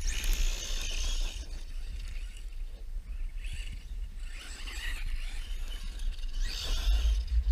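Traxxas E-Revo 1/8 electric RC monster truck driving over loose gravel, its spinning tyres spraying stones and dirt. The spray swells three times: loudest right at the start, again around four seconds in, and near the end.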